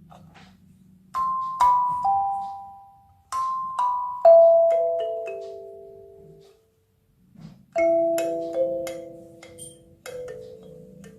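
Molioon 17-key kalimba, its metal tines plucked one note at a time in short, mostly descending phrases, each note ringing and fading. There is a brief pause about two-thirds of the way through.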